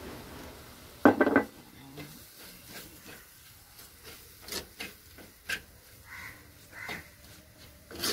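A spoon stirring and scraping in a pan as grated coconut is sautéed into the spice masala. There is a loud clatter about a second in, then scattered knocks and scrapes.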